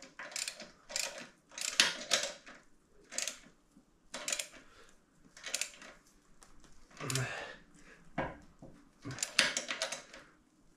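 Ratchet wrench clicking in short bursts of rapid ticks, one burst on each back-swing, as bolts are tightened.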